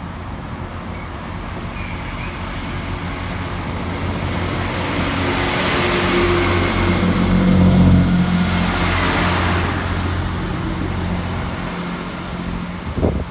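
A train passing close by, its engine and wheel noise building to a peak about two-thirds of the way through and then fading as it moves away. A short knock sounds near the end.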